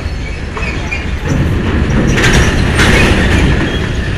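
A three-axle box truck's diesel engine and tyres rolling off a ferry ramp onto the steel deck grating, getting louder about a second in as it passes close. Heavy clanks from the ramp plates come about two to three seconds in.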